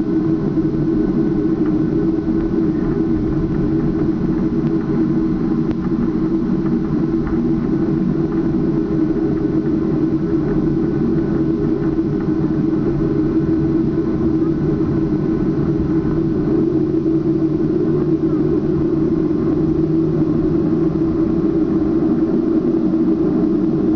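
Boeing 737-700's CFM56 turbofan engines heard from inside the cabin over the wing: a steady, even drone as the airliner rolls along the runway before take-off.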